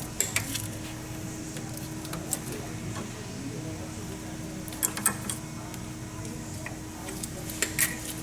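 Metal hand tools clinking against engine parts during reassembly: a few sharp clicks, mostly in close pairs, over a steady low hum.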